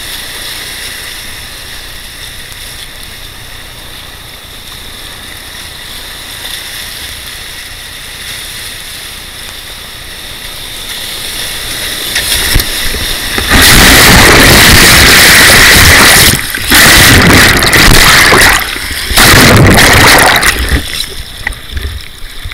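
Whitewater rushing past a kayak, heard as a steady hiss on the boat-mounted camera's microphone. Past the halfway point, water crashes over the microphone in three long, very loud surges that overload it, and the camera ends up underwater.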